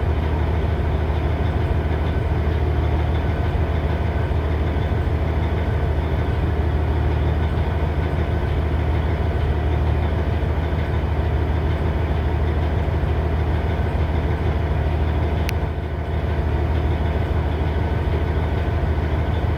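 2006 Cummins ISX CM870 inline-six diesel engine idling steadily, showing the rough idle it is being filmed for. A single click about fifteen seconds in.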